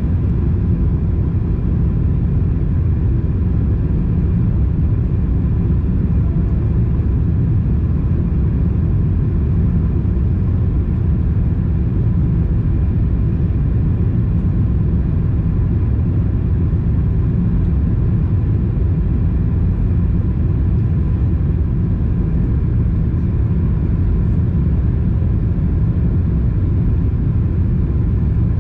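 Steady low rumble of engine and airflow noise inside the cabin of a Boeing 767-300ER airliner on descent, heard from a window seat over the wing, with a faint steady hum above it.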